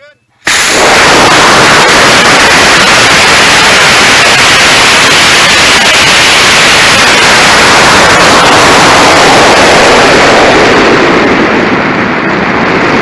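F10-8 long-burn model rocket motor igniting about half a second in and burning as the rocket climbs, heard from a camera strapped to the rocket's body tube: a sudden, very loud, steady rush at full loudness. The highest part of the rush thins out near the end.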